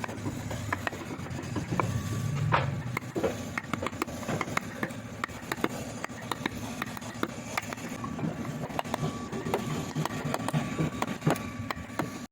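Hand carving in wood: many irregular sharp taps and clicks of carving tools on wood, over a low steady hum.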